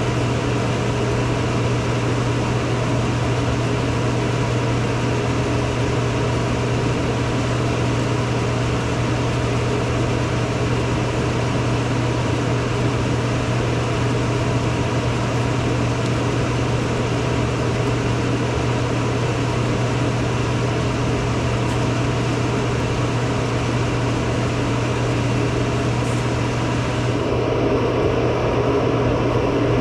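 Fume extractor blower running steadily with a low hum and rushing air, drawing off fumes while a laser machine removes an iPhone's back glass. The hiss turns slightly duller near the end.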